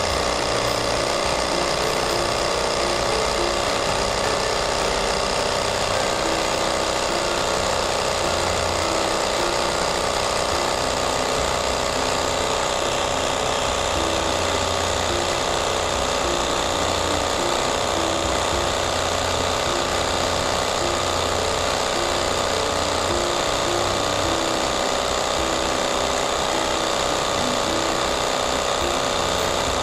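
Meltec portable air compressor running steadily as it pumps up a newly fitted winter tyre, its gauge at about 200 kPa.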